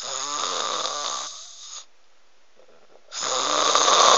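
Loud snoring: two long, rattling snores. The first lasts nearly two seconds; the second starts about three seconds in.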